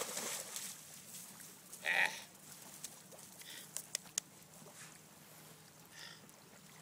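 Water splashing as a dog wades out of shallow water, then a short high call about two seconds in. Fainter calls and a few sharp clicks follow.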